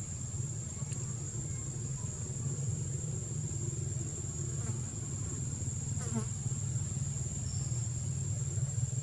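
Steady, high-pitched insect drone over a steady low hum.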